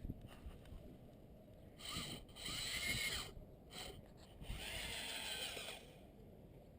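A small power tool motor whirring in two short bursts of about a second and a half each, its pitch rising and then falling as it spins up and runs down.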